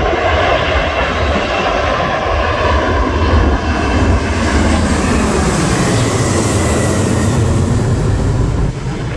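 Airbus A330's twin jet engines at takeoff thrust as the airliner climbs out overhead. A loud jet roar carries a whine that slowly falls in pitch. The roar grows brighter and peaks about five to seven seconds in, then eases slightly near the end.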